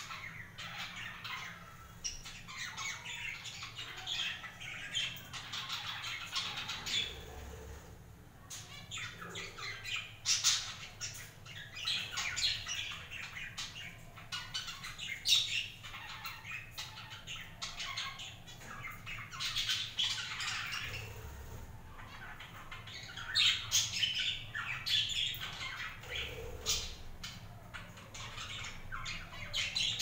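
Budgerigars chattering together: a dense, continuous run of quick chirps, warbles and sharp short calls that swells and eases in bouts.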